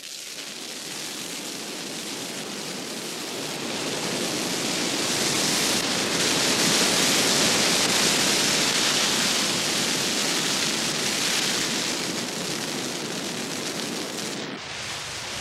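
Flames of a conifer torching in a forest fire, its crown igniting after the heat has built up: a steady rushing noise that swells to its loudest about halfway through, then eases, with a brief dip near the end.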